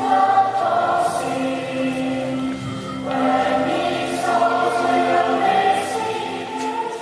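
A group of school pupils singing together, a Christmas carol refrain with music, held notes running on without a break.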